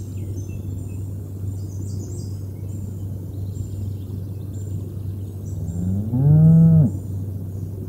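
A cow mooing once about six seconds in: one long moo that rises in pitch, holds, then cuts off.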